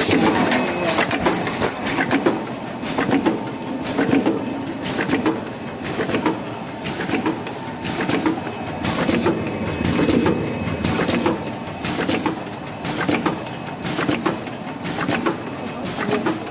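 SoonTrue dual-channel dumpling-forming machine running, a rhythmic mechanical clatter with sharp clicks repeating about once a second.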